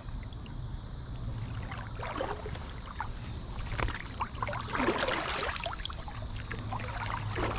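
Feet wading through a shallow creek, making a few sloshing splashes. The loudest comes about five seconds in.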